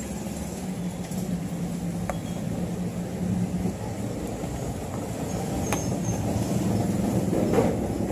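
A motor vehicle's engine running steadily, with a low hum that grows slightly louder, and two faint clicks.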